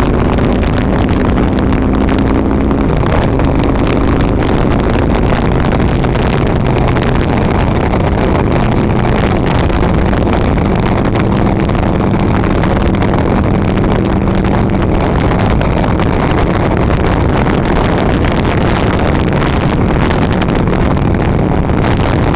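Harley-Davidson V-twin motorcycle engine running at steady highway cruising speed, mixed with wind rushing past the bike. The engine note shifts slightly in the first few seconds, then holds steady.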